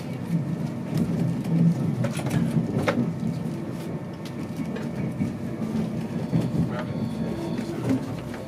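InterCity 225 train running on the track, heard from on board: a steady low rumble and hum with scattered clicks and knocks from the rails. The sharpest clicks come about two and three seconds in.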